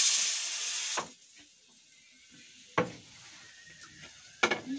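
Loud sizzling hiss of food frying in a hot pan that stops abruptly about a second in, followed by a sharp knock and, near the end, a few knocks of a utensil against the pan.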